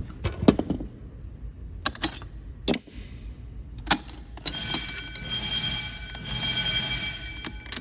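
A few sharp clicks and clacks as a fire alarm pull station is worked, then a Wheelock electric motor fire bell rings steadily for about three seconds, starting about halfway in, and stops: a brief test ring of the bell.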